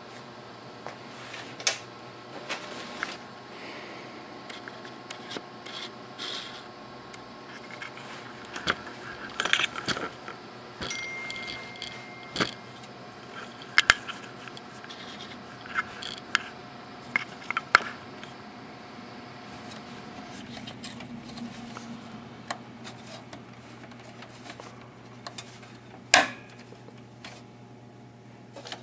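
Handling noise from fitting a CR2032 coin-cell battery into a desktop motherboard's battery socket: scattered clicks, metallic taps and scrapes of fingers, cables and the cell, with one sharp click near the end, the loudest. A faint steady hum runs underneath.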